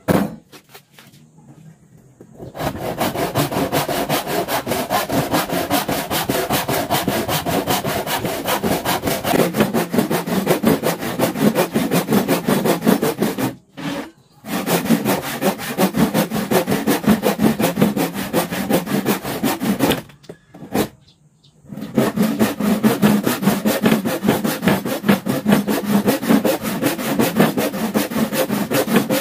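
Hand saw cutting wood in steady back-and-forth strokes, starting a couple of seconds in and stopping briefly twice along the way.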